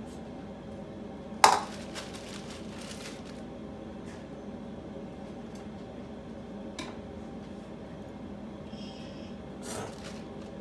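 Kitchen clatter on a countertop: one sharp knock of a hard item set down about a second and a half in, ringing briefly, then a few light clicks, over a steady low hum.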